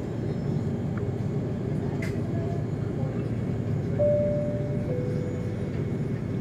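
Steady low rumble of an Airbus A330's engines and airframe heard from inside the cabin as the airliner taxis. A short steady tone steps down in pitch about four seconds in.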